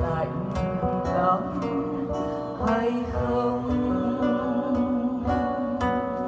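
A woman singing a Vietnamese song to acoustic guitar accompaniment, with the guitar's plucked notes under her wavering, held sung lines.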